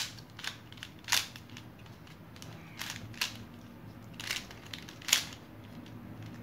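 Plastic layers of a shape-shifting twisty 3x3 puzzle cube being turned by hand. It gives about six sharp clacks at irregular intervals, with softer clicking and rattling between them.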